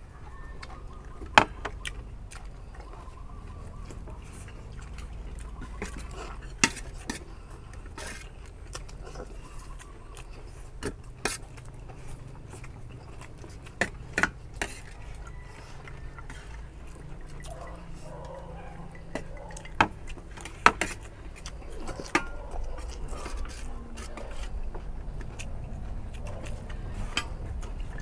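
Eating utensils clinking and scraping against a plate at irregular intervals, a few of the clinks sharp and loud, over a low steady hum.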